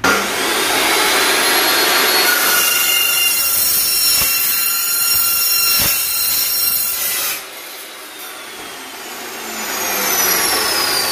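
Makita LC1230 low-speed metal cutting saw with a carbide-tipped blade, starting up and then cutting through a steel tube with a loud, steady metallic screech. The cut ends suddenly about seven seconds in, and near the end the blade's whine falls in pitch as it winds down.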